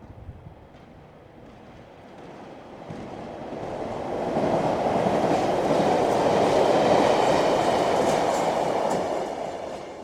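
British Rail Class 317 electric multiple unit passing through a station. It grows from a distant rumble to a loud rush and rattle, loudest from about four to nine seconds in with a faint whine above it, then fades away near the end.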